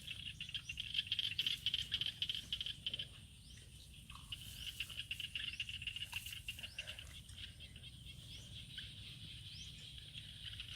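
Insects trilling in a steady high-pitched chorus, a little quieter after about three seconds, with short rising chirps scattered through it.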